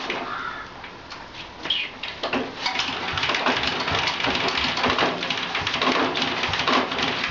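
Single-cylinder diesel engine of a diesel-converted Royal Enfield Bullet being kick-started: the kickstart and the engine turning over make a series of irregular knocks, denser after about two seconds.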